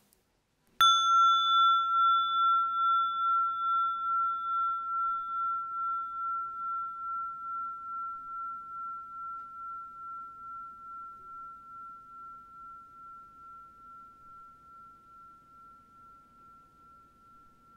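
A bell struck once, probably a meditation bell or singing bowl, its clear high tone ringing on and fading slowly with a steady wavering pulse about twice a second.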